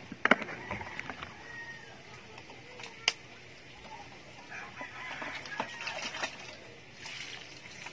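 Chickens clucking, with a few sharp clicks and knocks from things being handled.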